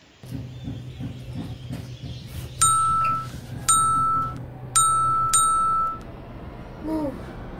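Phone notification pings sounding four times in quick succession, each a bright chime that rings for about half a second, over a low steady buzz.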